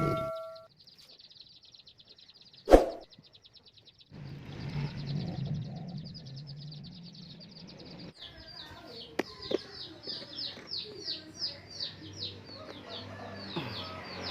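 Young chicks peeping: a run of short, high, falling peeps, about two a second, through the second half. Before that there is a faint, fast, high trill and a single sharp knock about three seconds in.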